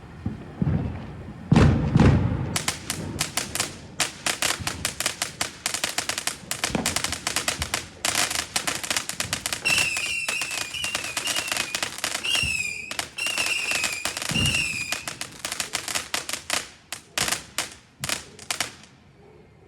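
Chinese firework cake firing. A few low launch thumps give way to dense, rapid crackling, and warbling whistles join in about halfway through. The crackling thins out and stops near the end.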